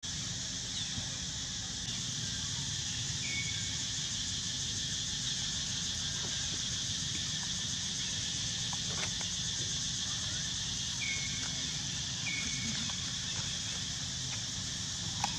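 Steady high-pitched drone of insects over a low rumble, with three short high chirps and a sharp click near the end.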